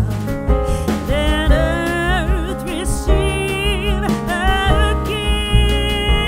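Background music: a song with a wavering lead melody over bass and drum hits.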